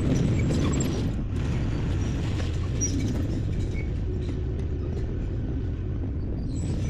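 CAT D5K crawler dozer working, its diesel engine running in a steady low rumble, with scattered faint high clicks.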